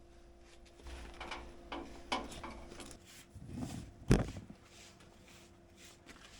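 Scuffing and knocking as something is handled, with one sharp knock about four seconds in, over a faint steady hum.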